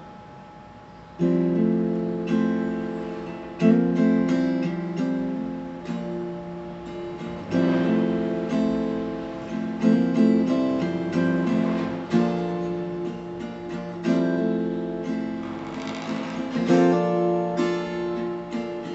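Acoustic guitar playing the intro chords of a song. Each chord is struck and left to ring, the first coming in about a second in.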